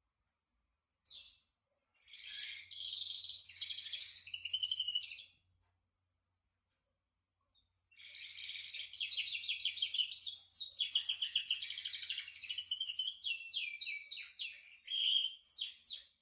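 Belgian canary singing: two long phrases of rapid trills and warbles, the first from about two seconds in and the second from about eight seconds in, after a short single call.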